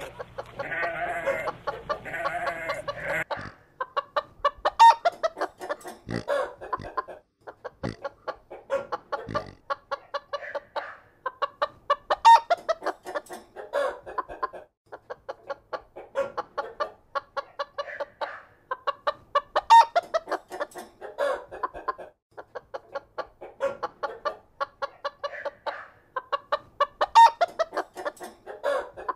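Chickens clucking in quick runs of short clucks, a pattern that repeats about every seven and a half seconds, after a drawn-out call in the first few seconds.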